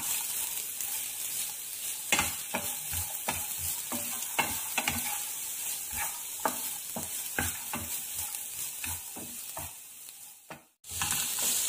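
Chopped onions frying in oil in a non-stick pan, with a steady sizzle, while a spatula stirs them in repeated scrapes and taps against the pan. The sound drops out briefly near the end.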